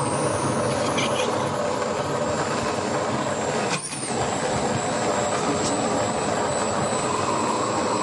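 Handheld immersion blender running steadily with a high motor whine, pureeing sun-dried tomatoes in oil in a jar into a sauce. A little under four seconds in it drops off briefly and starts again with a rising whine.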